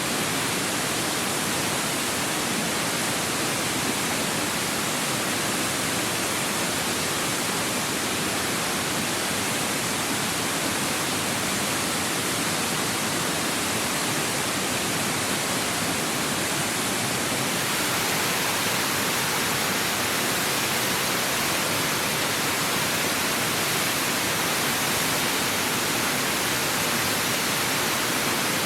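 Mountain waterfall: a steady rush of falling and splashing water, mostly high and hissy, turning slightly brighter about two-thirds of the way in.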